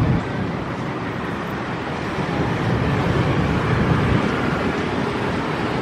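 CC 206 diesel-electric locomotive running steadily with a low rumble as it moves slowly along the station tracks with its coaches during shunting.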